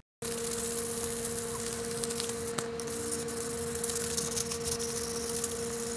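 Sandpaper rubbed by hand back and forth over a wooden handle, a dry scratching over a steady hum.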